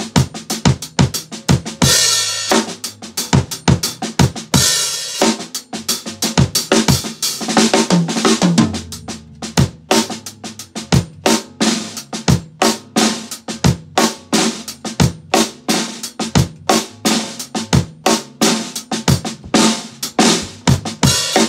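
Acoustic drum kit played solo in a fast groove with fills: bass drum, snare and toms struck in quick succession, with cymbal crashes ringing out about two and five seconds in.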